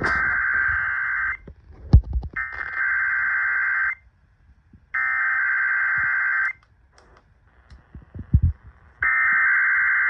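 Emergency Alert System SAME header data bursts, harsh buzzing digital tones, played through a small portable AM radio's speaker. Four bursts of about a second and a half each, with short gaps between them and a few handling knocks in the gaps.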